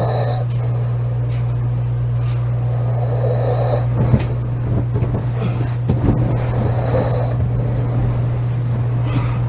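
A woman snoring in her sleep, three snores about three and a half seconds apart, over a steady low hum. A short knock about four seconds in.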